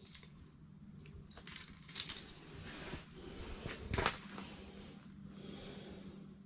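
A few light metallic clinks about two seconds in and a sharper knock about four seconds in, over a steady low hum.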